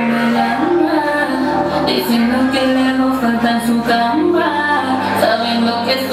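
Recorded pop song with a woman singing lead over bass and synths, played loud for a lip-sync performance.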